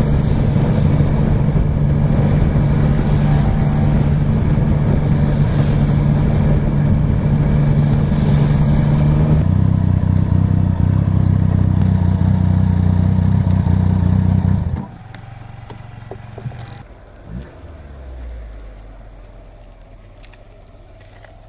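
Yamaha N-Max 125 scooter's single-cylinder four-stroke engine running at a steady cruising speed, with wind rushing past the microphone. About ten seconds in, the wind fades and the engine note drops lower as the scooter slows. After about fifteen seconds the engine sound cuts off suddenly, leaving a much quieter background with faint low rumbles and a few knocks.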